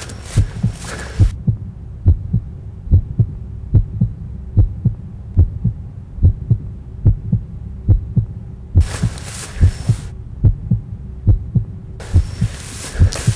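Heartbeat sound effect: steady double thumps, a little faster than one a second. A hiss sits over it at the start, cuts off suddenly, comes back briefly about nine seconds in, and returns near the end.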